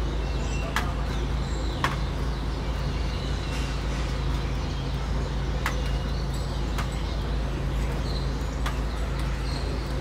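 Evening city ambience: a steady low rumble of distant traffic, with starlings chirping and a few sharp clicks scattered through.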